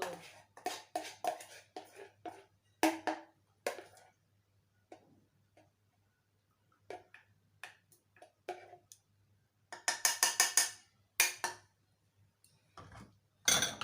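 Kitchen utensils and cookware clinking and knocking: scattered short taps and clicks at an irregular pace, with a quick burst of rattling about ten seconds in.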